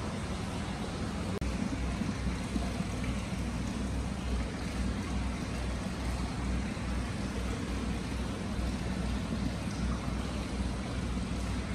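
Free-flowing hot spring water pouring steadily from a stone basin into an indoor bath: a continuous rush of water with a strong low rumble.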